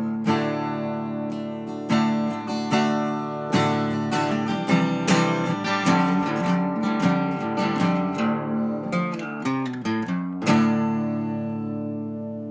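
Background music: acoustic guitar picking and strumming, ending on a chord that rings on and slowly fades.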